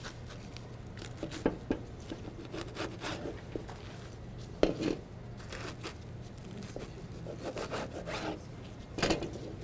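Knife cutting food on a cutting board: rasping, sawing strokes with scattered knocks of the blade on the board. The loudest knock comes about four and a half seconds in. A steady low hum runs underneath.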